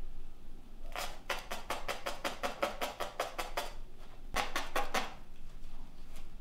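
Punch needle punching yarn through stretched fabric: a quick, even run of crisp pops, about seven a second, for over two seconds, then a second, shorter run about four seconds in.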